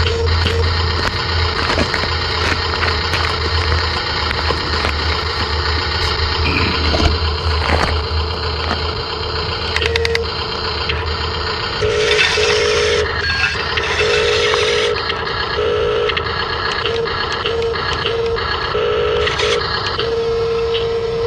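Toy RC construction vehicles running, a steady whir of small electric motors and plastic gearing, with an electronic beeper sounding on and off at irregular intervals, some beeps warbling fast and one held longer near the end.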